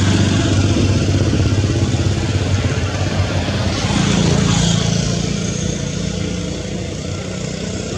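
A motor engine running steadily, with a low hum, fading gradually over the last few seconds.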